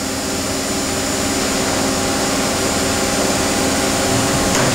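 Okuma & Howa Millac 630H horizontal machining center running through a tool change: a steady mechanical hum with several held tones that grows slowly louder as the machine moves, with a faint click near the end.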